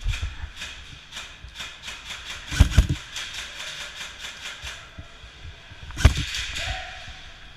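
Airsoft guns firing: a string of scattered sharp pops throughout, with two louder bursts about two and a half seconds and six seconds in.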